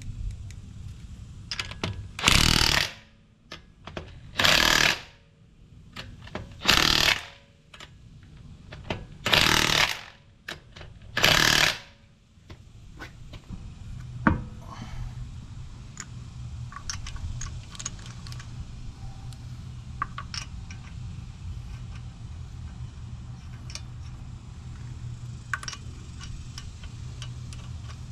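Cordless DeWalt impact wrench hammering lug nuts tight on a car wheel in five short bursts, each about half a second to a second long. After them comes a sharp snap as the wheel's center cap is pressed on by hand, then scattered light clicks as hands work at the lug nuts.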